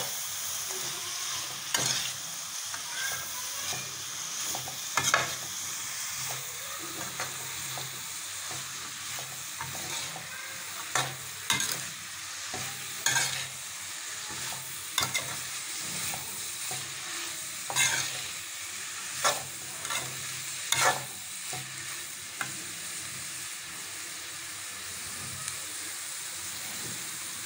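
Shredded cabbage and chicken sizzling in a hot wok while a metal spatula stirs and tosses them, scraping and clicking against the pan at irregular moments.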